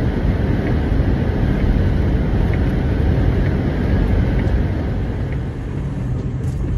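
Steady engine and road rumble of a semi-truck heard from inside the cab while driving, with a faint tick about once a second through the first five seconds.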